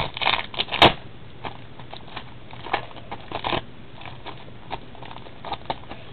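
Trading cards being handled: a run of short rustles and flicks as cards are sorted and flipped, with one sharp click a little under a second in.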